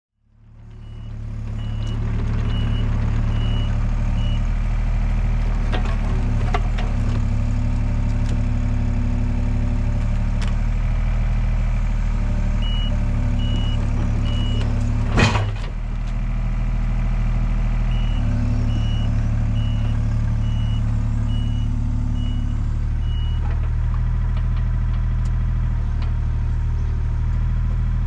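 Excavator's diesel engine running steadily, with its travel alarm beeping in runs of about two beeps a second. There is one sharp loud knock about halfway through.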